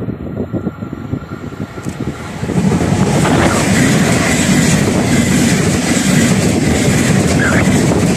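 Deutsche Bahn ICE high-speed train passing close by, its wheels rolling on the rails. The noise swells sharply about two and a half seconds in as the train draws level, then holds steady.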